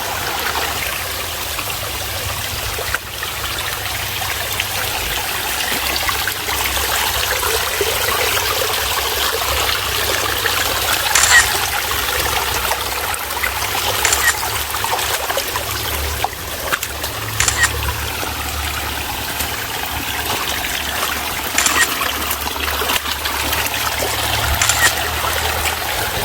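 Mountain stream water running over rocks: a steady rush, with a few short louder moments spread through it.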